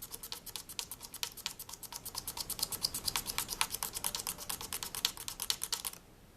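Straight razor blade scraping a mandolin fretboard in quick back-and-forth strokes that stop suddenly about six seconds in. The blade is taking out a stubborn scratch left in the fretboard by a triangle file.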